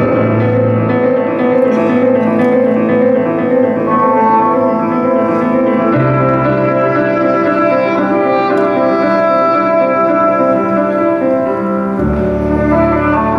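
Slow instrumental background music of sustained chords, the harmony and bass changing about every six seconds.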